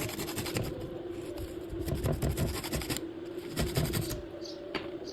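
Quick scratching and scraping strokes, as from a tool worked against wood, coming in bursts and thinning out to a few clicks near the end, over a steady low hum.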